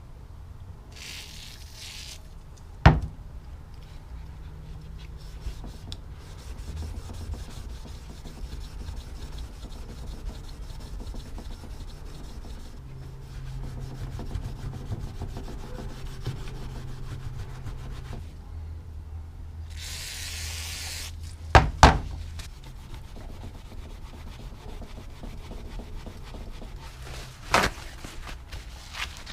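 Steel wool pad scrubbing the metal of a pair of snap lock pliers coated in spray lubricant, a steady rubbing. It is broken by two short hisses of aerosol lubricant spray, one near the start and one about two-thirds through. There are also a few sharp metallic knocks, the loudest sounds, about three seconds in, twice near twenty-two seconds and once near the end.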